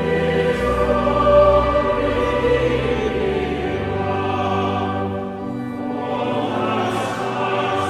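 Background music: a choir singing long held chords over a low bass line.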